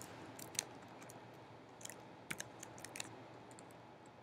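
Faint, scattered keystrokes on a computer keyboard: about a dozen short taps in uneven clusters over a low hiss.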